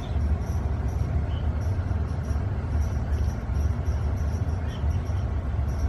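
A steady low hum, with faint short high chirps now and then.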